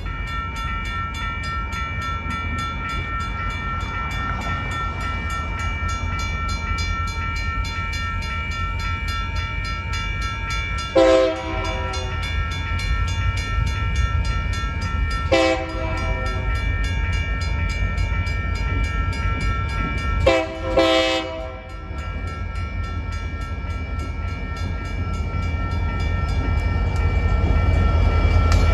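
A railroad crossing bell rings steadily while an approaching Union Pacific diesel locomotive sounds its multi-note horn three times, about eleven, fifteen and twenty seconds in, the last blast broken in two. Over the last few seconds the engine's low rumble grows louder as the locomotive reaches the crossing.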